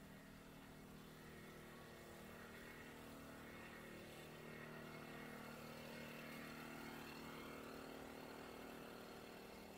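Faint, steady hum of a motor vehicle's engine running, growing a little louder partway through and easing off near the end.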